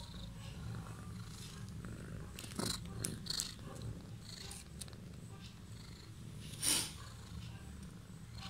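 Steady low purring from a mother cat lying with her nursing newborn kitten, with a few brief faint clicks about three seconds in and near seven seconds.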